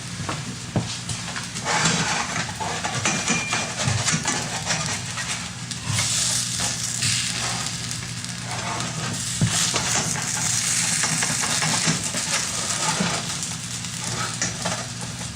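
Pancake batter sizzling in a buttered frying pan, with a utensil scraping and clicking against the pan now and then.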